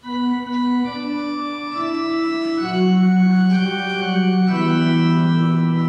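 Organ playing the introduction to a choral hymn: slow, sustained chords held without vibrato, with notes moving to new pitches about once a second.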